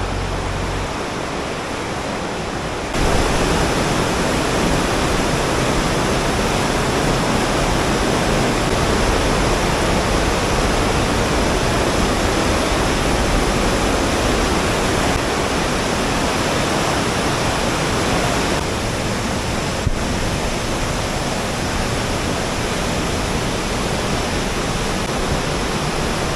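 Loud, steady rush of fast-flowing water, like a mountain stream or waterfall. It jumps louder about three seconds in and changes again near the middle, with a single click shortly after.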